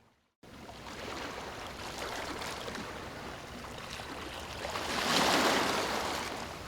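Ocean waves washing onto shore, after a moment's silence: one wave builds to its loudest about five seconds in and then recedes.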